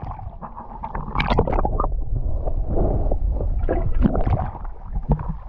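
Wind rumbling on the microphone over water splashing and sloshing, with scattered small knocks and splashes against a canoe, the clearest about a second in and again about four seconds in.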